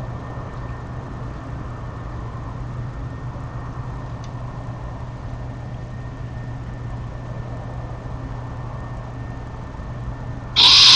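Steady low hum with a light hiss, and one short, loud harsh sound near the end.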